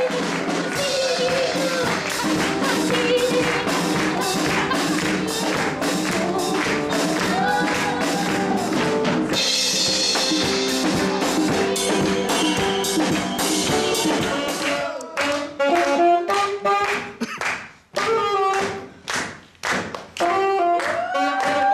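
Live band music: a drum kit keeping a steady beat with cymbals under a saxophone melody. From about 15 seconds in it breaks into short, stop-start phrases with brief silences between them.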